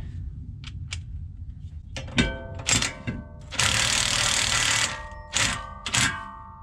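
Metal tools and brake parts knocking together four times, each knock followed by a brief metallic ring. Partway through there is a steady hiss lasting just over a second.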